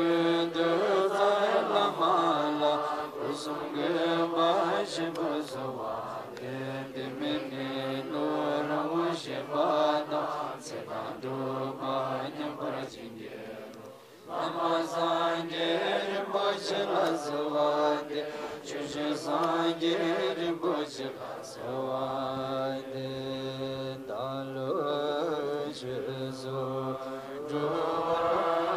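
Tibetan Buddhist monks chanting prayers together in low, sustained voices, a group recitation from their texts. The chant breaks off briefly about halfway through, then resumes.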